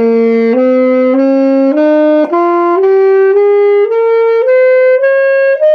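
Alto saxophone playing an ascending F major scale, one note about every half second in an even stepwise climb that passes the octave and keeps rising.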